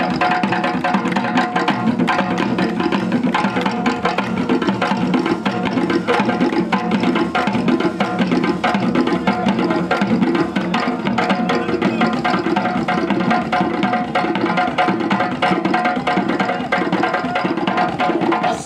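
Hand drums, djembes among them, playing a fast, dense rhythm for dancing.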